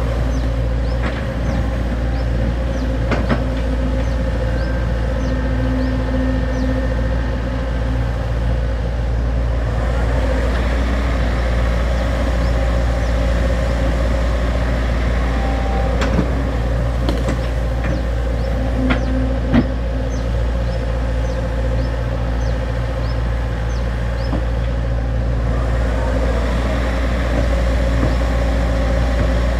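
XCMG XE75G excavator's diesel engine running steadily under digging load. A few sharp knocks are heard, about 3 seconds in and twice near the middle.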